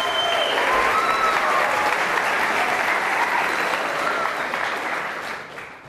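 A hall full of schoolchildren applauding, with a few voices over the clapping; the applause dies away near the end.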